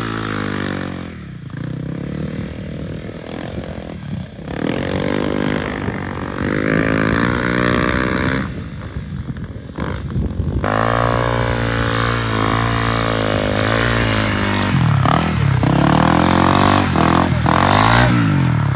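Off-road dirt bike engine revving as it rides through soft sand, its pitch rising and falling with the throttle. Near the end it gives several quick revs up and down.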